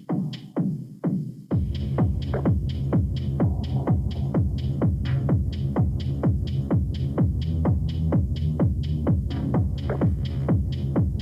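Techno from a DJ mix: a drum-machine kick beating about twice a second over a heavy bassline. The bass is cut out for the first second and a half, then the full low end comes back in.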